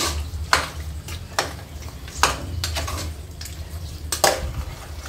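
A spoon stirring mutton and chopped tomatoes in an aluminium pressure cooker, scraping and knocking against the pot about five times at uneven intervals, over a faint sizzle of frying.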